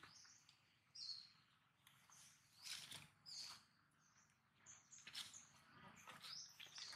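Faint, high-pitched animal chirps and squeaks, short bending calls repeated every second or so, with a few soft rustles between them.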